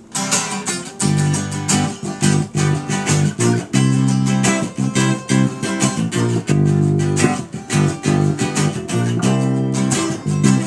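Instrumental passage of a band song: strummed guitar chords in a steady rhythm, with bass, between sung verses.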